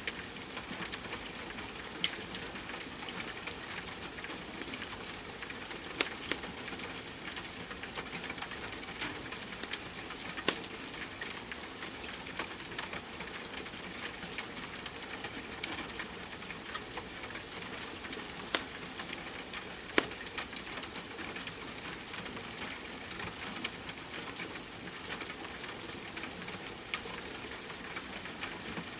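Steady rain hiss mixed with a crackling wood fire, with about five sharp pops from the fire standing out above the hiss.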